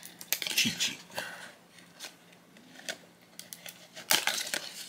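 Scissors snipping through the packaging card of a small plush toy: a run of short sharp cuts and clicks, the loudest cluster about four seconds in.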